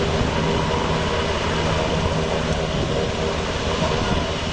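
Steady drone of an aircraft engine over a low rumble, holding even throughout.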